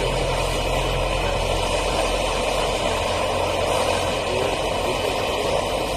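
Isuzu Fuego pickup's engine idling steadily, with an even rushing noise over a low hum.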